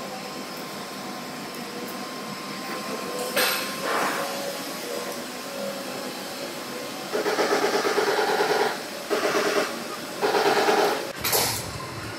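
Repair-shop noise: three bursts of a rapid mechanical rattle, each about a second long, over a steady hum, then a low thud near the end.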